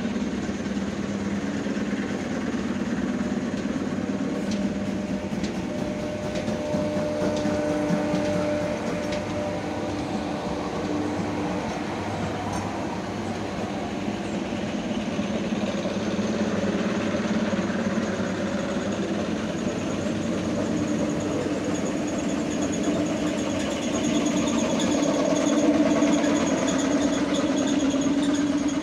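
ER9M eight-car electric train rolling past close by: steady wheel-on-rail noise with a hum under it, getting louder in the last few seconds as the rear cars go by.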